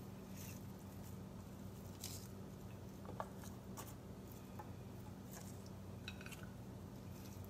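Faint, scattered taps and rustles of raw onion pieces being laid by hand into a pot of sliced tofu, over a steady low hum.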